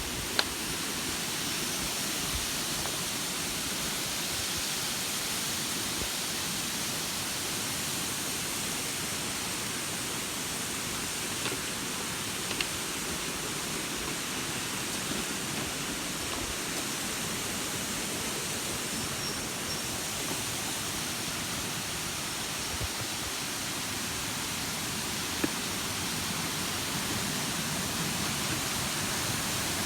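Waterfall rushing steadily, with a few faint sharp knocks.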